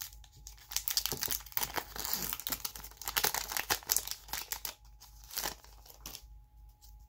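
A Pokémon booster pack's foil wrapper crinkling as it is opened and the cards are slid out. The crackling is dense for about the first five seconds, then thins to a few light rustles.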